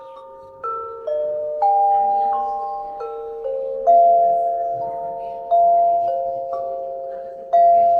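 A metallophone with metal bars over tube resonators, struck one note at a time with soft yarn mallets. About a dozen slow, unevenly spaced notes, each ringing on long and overlapping the next.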